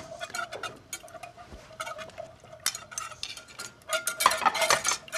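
Wire whisk clicking and scraping irregularly against a stainless steel saucepan as cold butter is whisked into a bonito reduction to emulsify it. The clicks come thicker about four seconds in.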